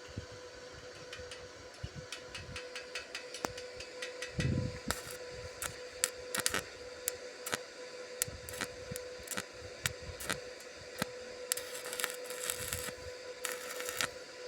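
Electric arc welding: irregular crackling clicks with stretches of sizzling hiss, the densest about twelve seconds in and again near the end, over a steady electrical hum.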